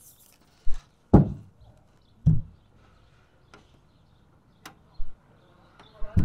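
A series of dull knocks on the Fiat Ducato van's sheet-metal roof and body, about five spaced over several seconds, the loudest near one, two and six seconds in, each with a short low boom as the panel carries it. They come from working on the roof around the vent hole while the mastic sealing strip is laid.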